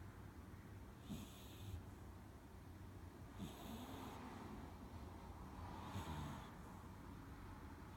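Chihuahua–Jack Russell terrier mix puppy snoring in its sleep: soft, regular snoring breaths, about one every two and a half seconds.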